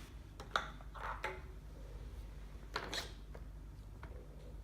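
Plastic Play-Doh tubs and tools being handled: a few faint light clicks and taps, spaced irregularly.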